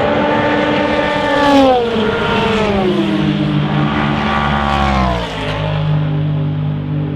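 Endurance race car engine at close range, its note falling in three sweeps over about five seconds and then holding steady at a lower pitch, as when the car slows for a corner.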